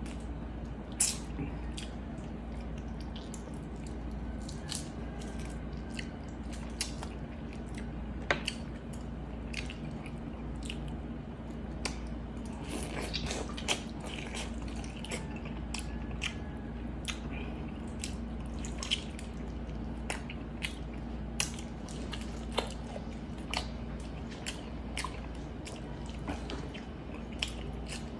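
Close-miked wet chewing, biting and lip-smacking of someone eating pork hock braised in Coke by hand, heard as many short sharp smacks and clicks scattered irregularly. A steady low hum runs underneath.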